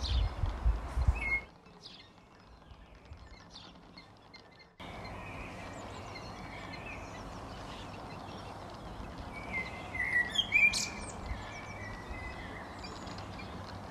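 Outdoor ambience with small birds chirping. A low rumble at the start cuts off after about a second and a half, and the background goes quiet until about five seconds in, when it returns as a steady hiss with chirps; the loudest is a cluster of bird calls about ten seconds in.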